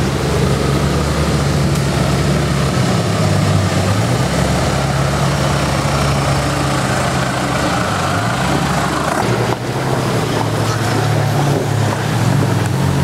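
UAZ 469 off-road vehicle engine running at changing revs, its pitch stepping up and down. The level dips briefly about two-thirds of the way through.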